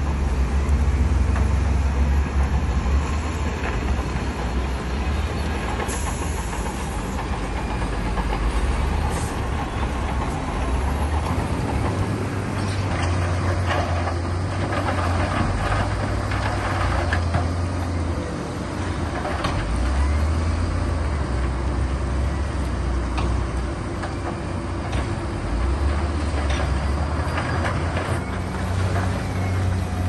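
Heavy diesel engines of earthmoving machines running under load, a deep rumble that swells and eases every few seconds, with occasional short knocks.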